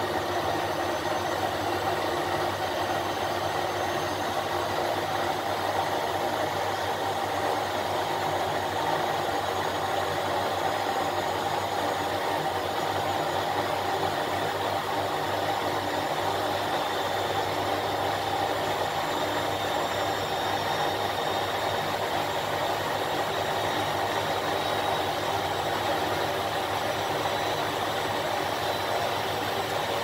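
1988 Miele WS 5406 commercial front-loading washing machine running with water in the drum: a steady mechanical hum with several held tones over a noisy rush. No start, stop or change in pace.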